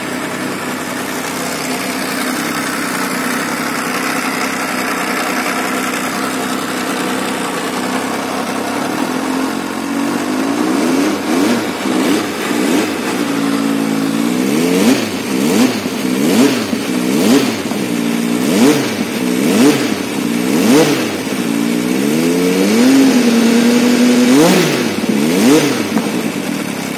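Benelli Tornado Tre 900's inline three-cylinder engine idling steadily, then revved with repeated throttle blips from about ten seconds in, each rev rising and dropping back to idle about once a second, with one briefly held rev near the end.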